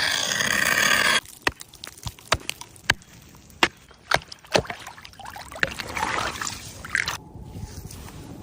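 A loud rushing noise for about a second, then a run of irregular sharp knocks and clicks.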